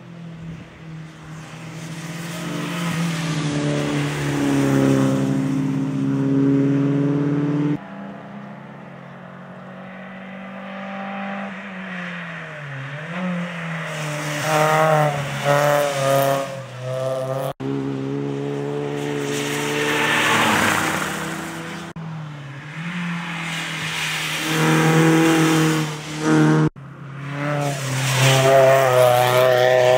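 Rally car engines driven hard, revving up and down through the gears, the sound changing abruptly several times between passes.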